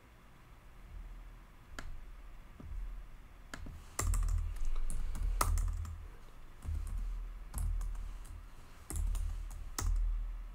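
Computer keyboard typing: scattered, irregular keystrokes, each with a dull low thud, sparse at first and quicker from about four seconds in.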